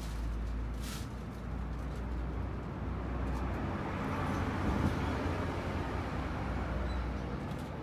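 Small four-wheel-drive vehicle running, a steady low engine drone under a wider rushing noise that swells about four to five seconds in.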